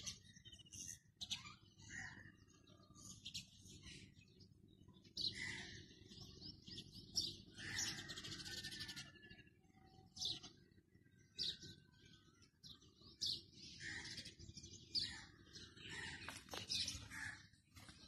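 Young cockatiel calling: short high chirps mixed with longer hissy, raspy calls, coming irregularly, over a low steady hum.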